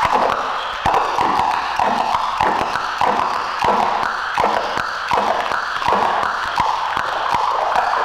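Experimental electronic noise music: a dense band of hiss and crackle that swells and breaks off irregularly about every half second, peppered with sharp clicks.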